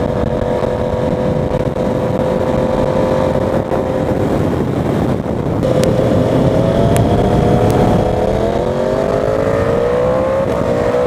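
2020 Yamaha R1's crossplane inline-four engine cruising at about 5,500 rpm in fourth gear. About five seconds in the note breaks briefly and comes back higher. About eight seconds in it drops, then climbs gradually as the bike accelerates again.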